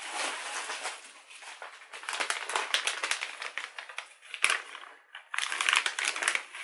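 Plastic bag of potting soil crinkling and rustling as it is handled, full of small crackles, with a short pause about five seconds in.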